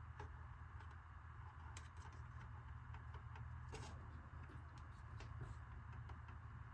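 Faint, irregular clicks and taps of hard plastic RC truck body parts being handled and fitted, over a steady low hum.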